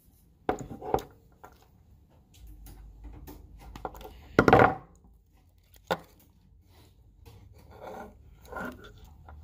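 Handling noise from a car-stereo wiring harness: bundled wires and plastic connectors rustling and knocking in the hands, with a few sharp clicks, the loudest a short cluster about halfway through.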